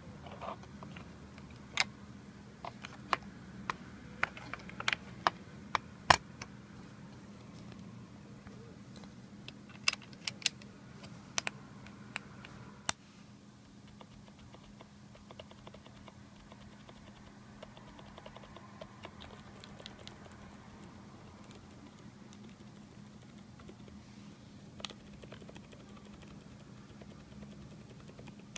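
Keys of a Buffalo BSKBW10BK wireless keyboard clacking as they are pressed: sharp single strokes spaced out over the first half, then lighter and quicker taps after a drop in level about halfway through.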